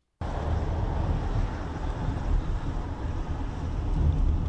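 Road and engine noise heard inside a moving car: a steady low rumble with a hiss of tyre and wind noise over it, cutting in suddenly at the start.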